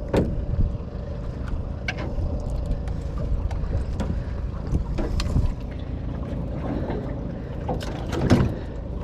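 Steady low rumble aboard a small fishing boat, with scattered knocks and clatter on board. The loudest knocks come a little after eight seconds in.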